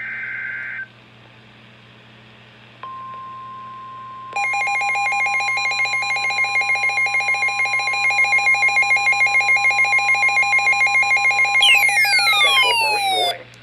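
Emergency Alert System broadcast tones. The last burst of the screeching digital SAME header ends, then a steady 1050 Hz weather-radio alert tone starts about 3 seconds in. About a second later a louder alarm tone joins it, pulsing about five times a second, and falling whistling sweeps come in near the end before all the tones cut off together.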